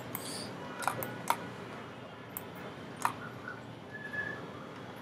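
Several sharp computer mouse clicks, irregularly spaced, over a steady low hiss of room and microphone noise.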